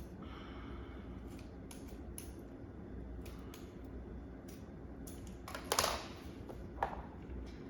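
Scissors snipping at hair wound around a Roomba's brush: a series of irregular small snips, with a louder rustling handling noise a little before six seconds in.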